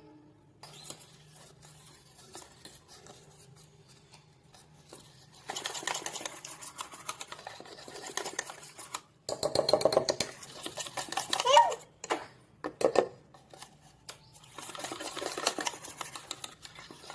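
Pancake batter being stirred in a bowl: a utensil clicking rapidly and evenly against the bowl in three spells.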